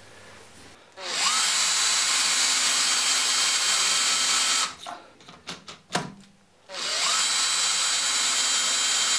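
Makita cordless drill run twice, spot-drilling dimples into the lathe saddle through the hole in the half-nut lever's hub, where a ball detent will seat. Each run spins up with a short rising whine and runs steadily for a few seconds. Between the runs come a few sharp clicks and knocks as the lever is moved to the second position.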